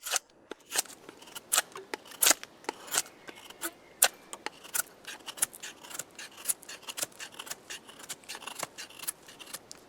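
Folding knife blade (Cold Steel Recon 1 Tanto) carving wood in quick, irregular short strokes, each cut a sharp crisp scrape. The edge is being checked on wood for sharpness after hard use.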